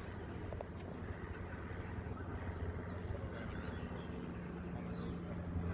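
An engine running at a steady low hum that grows slightly louder toward the end.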